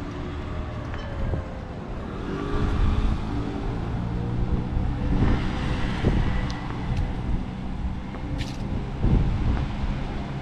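A motor engine running with a steady hum over outdoor background noise.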